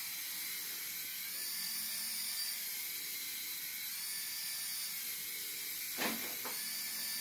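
Small infrared hand-sensor toy helicopter hovering: its tiny electric motors and rotors give a steady high whine and hiss that steps up and down in pitch a few times as the motor speed changes.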